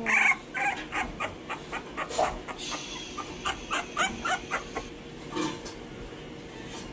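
Three-week-old bulldog puppies whimpering in a quick run of short, high squeaks, several a second, that die down about five seconds in.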